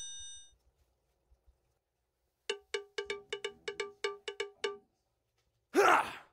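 Edited-in comedy sound effects: a chime dying away at the start, then a run of about eleven quick, identical cowbell-like pitched knocks over some two seconds, and a short loud whoosh near the end.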